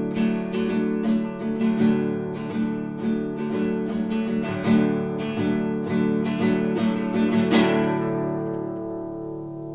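Classical guitar played fingerstyle: a run of plucked notes closing on a final chord about three-quarters of the way in, which is left to ring and slowly fade out.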